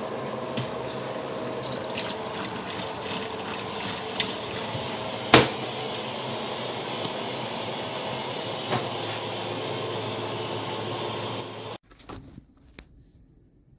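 Water running steadily from a sink faucet through a slip-on shower hose, with a sharp click about five seconds in. The running stops abruptly near the end, followed by a few light knocks.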